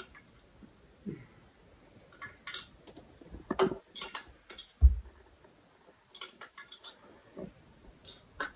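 Scattered light clicks and taps at irregular intervals, with one loud, low thump about five seconds in.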